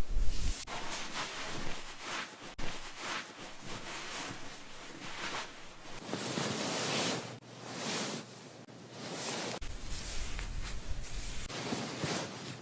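Hands scrubbing and rubbing hair and scalp during a hair wash: a soft, irregular rustling and swishing in uneven strokes, with a longer stretch of swishing a little past the middle.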